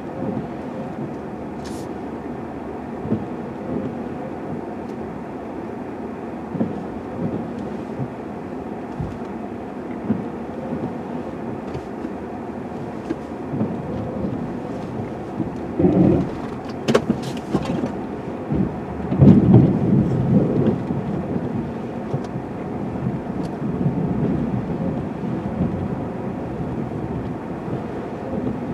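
Snow plow truck running while plowing snow, heard from inside the cab: a steady engine rumble with scattered knocks and rattles, growing louder in spells a little past the middle.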